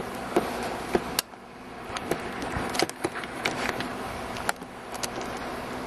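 Irregular sharp clicks and knocks, about nine of them, thinning out near the end, over a steady low hum.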